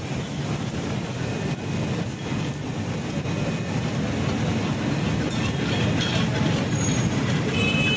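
Steady noisy background din, with no clear separate strikes or speech.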